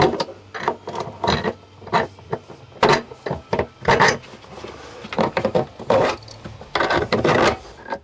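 Irregular clicks, knocks and scrapes of screws and a metal mounting plate being handled as the screws are pushed through the plate's holes.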